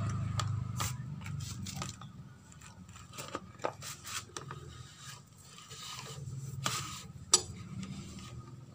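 Scattered light metallic clicks and scrapes of hands and tools working on a motorcycle engine's open cylinder head during a valve clearance check. The sharpest click comes near the end, over a faint steady low hum.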